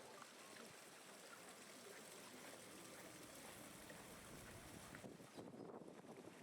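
Near silence: faint, steady outdoor background noise with no distinct event.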